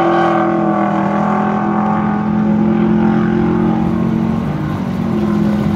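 Two muscle-car V8s, one a 1969 Dodge Coronet R/T, at full throttle accelerating away down a drag strip from the launch. The engine note holds steady, breaks briefly about four and a half seconds in, then picks up again.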